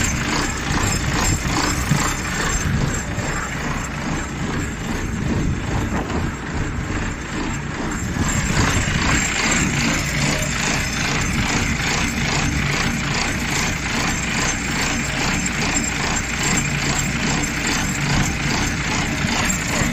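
Volvo Penta diesel engine running steadily at idle, with an even, regular pulse.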